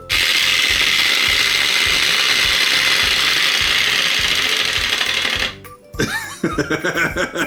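Wind-up chatter teeth toy running: its spring-driven gear mechanism buzzing and the plastic jaws clattering rapidly and steadily for about five and a half seconds, then stopping suddenly.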